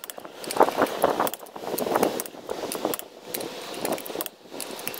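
Torque wrench ratcheting on wheel lug nuts in repeated strokes about once a second, each a run of metal clicks.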